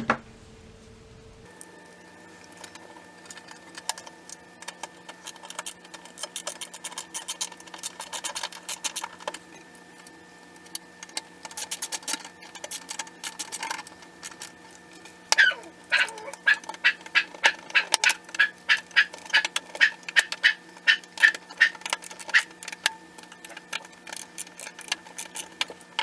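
Screws being driven by hand into the sheet-steel chassis of an HP Compaq d530 desktop: scattered small clicks and scrapes of the screwdriver, a brief squeak about fifteen seconds in, then a steady run of regular clicks until the end, over a faint steady hum.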